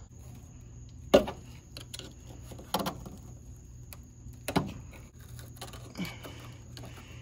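Four sharp metal knocks, about a second and a half apart, each with a short ring, over a low steady hum: metal parts being struck or handled while old rusty leaf springs are worked on.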